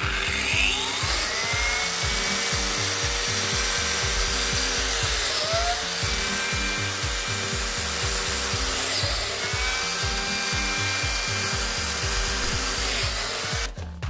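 Electric power tool cutting wood in two runs: its motor whine rises and holds through the cut, then falls away about five seconds in, and a second run rises about nine seconds in and winds down near the end. Background music with a steady beat plays underneath.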